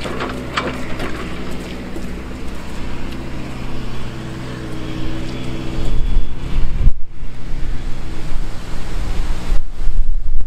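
Fiat-Hitachi EX135 tracked excavator's diesel engine running with a steady hum. From about six seconds in, wind buffets the microphone with a loud low rumble.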